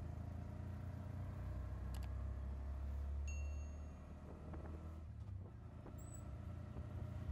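Low steady rumble of road traffic and a moving vehicle, with a short faint high tone a little over three seconds in.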